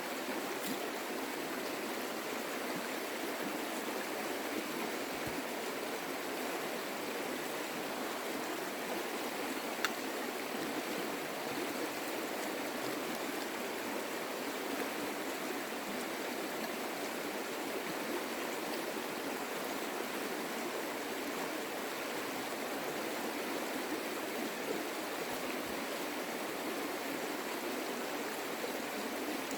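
Creek water flowing steadily, with one brief click about ten seconds in.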